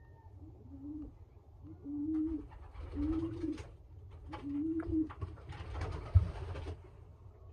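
A racing pigeon cooing: four short, low coos, each rising and falling, followed by a burst of rustling near the end.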